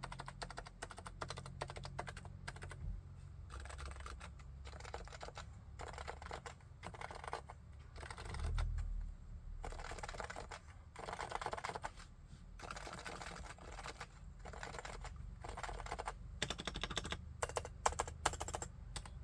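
Realforce R2TLSA tenkeyless keyboard with silenced Topre 45 g electrostatic capacitive switches being typed on in a steady stream of soft, muted keystrokes. There is a dull thump about a third of the way in, and a few sharper, louder strokes near the end.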